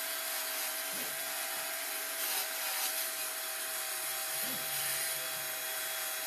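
Handheld rotary tool running with a steady high whine, its small flat wire wheel scrubbing old paint and grime off a die-cast metal toy chassis. There is a louder rasp between about two and three seconds in.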